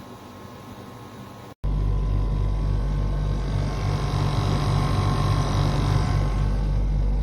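Inventor Chilly 9000 BTU portable air conditioner running: a steady low hum with fan noise. It jumps abruptly much louder about a second and a half in.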